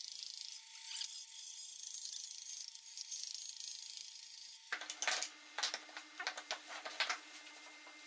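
Bandsaw cutting a pine board: a steady high hiss from the blade with a faint whine. A little over halfway through, the sound changes abruptly to light knocks and clatter as wooden pieces are handled on a workbench, over a low steady hum.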